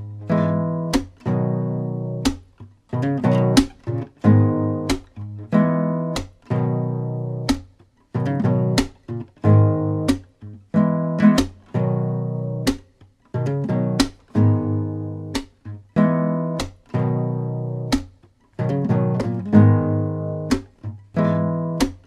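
Acoustic guitar music: strummed chords, each ringing out and fading before the next.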